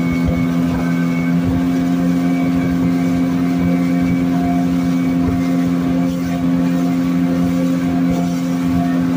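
Longboat's engine running steadily at cruising speed, a constant drone that holds an even pitch and level throughout.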